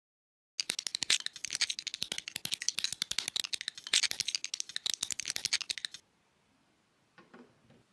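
Rapid clatter of small plastic LEGO bricks clicking and rattling against each other: a dense run of sharp clicks that starts about half a second in and stops abruptly about six seconds in. A faint short rustle follows near the end.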